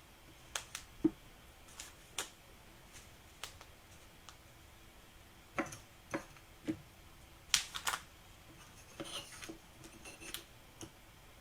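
Light handling of trading cards and card packs on a table: scattered soft clicks and taps, with a sharper pair of clicks past the middle.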